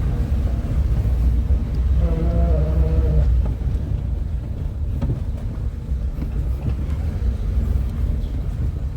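Peugeot 206 1.4 running in first gear with a steady low rumble, plus a brief pitched drone about two seconds in: the noise of a worn driveshaft bearing.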